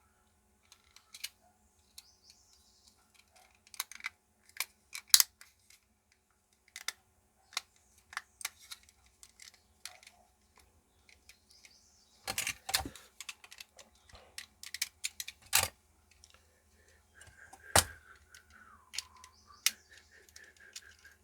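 Small plastic clicks and taps from a quartz wall-clock movement's casing and gears being handled and pressed together, coming irregularly with a dense flurry about twelve seconds in. The gears will not seat properly inside the housing.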